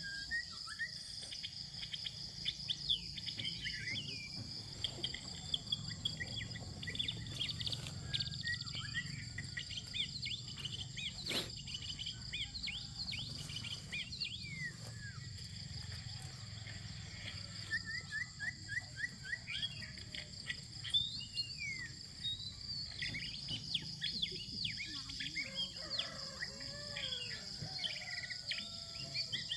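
Outdoor countryside ambience: birds chirping and calling with many short notes, over a steady high-pitched drone of insects such as crickets. There is a single sharp click about eleven seconds in.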